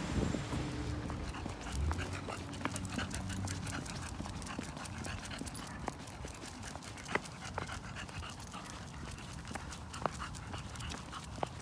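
A dog panting on a walk, with scattered light clicks on the concrete pavement. A delivery van's engine hums low at the start and fades out over the first few seconds.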